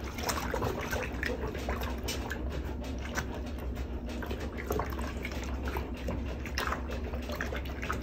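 Hot water sloshing and splashing in a small plastic bucket as hair dye is stirred into it and a wig is worked under by hand, in many short irregular splashes.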